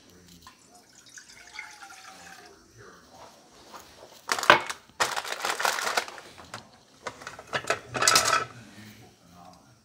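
Water poured quietly from a glass measuring cup into a saucepan, then several loud bursts of clattering kitchenware from about four seconds in to past eight seconds.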